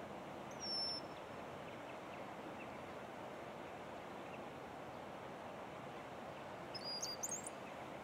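Brown-headed cowbird calling: a single thin, flat, high whistle about a second in, then near the end a short squeaky phrase of quick high notes sweeping upward. A steady low background hiss runs underneath.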